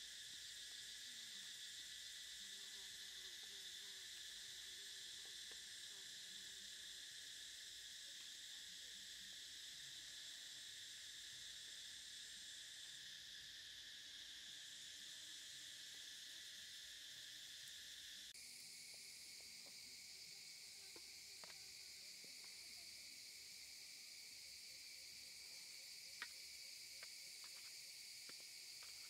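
Steady high-pitched chorus of insects, like crickets, whose pitch pattern shifts abruptly about eighteen seconds in. A few faint clicks come in the later part.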